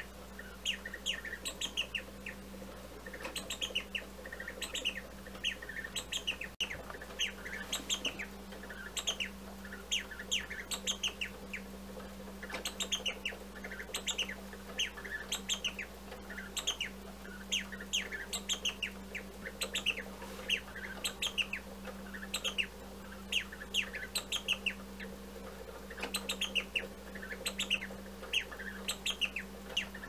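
Mechanical singing-bird automaton in a c.1870 carriage clock, its bellows-driven whistle piping quick falling chirps in short runs of two to five, one run about every second, over a steady low hum.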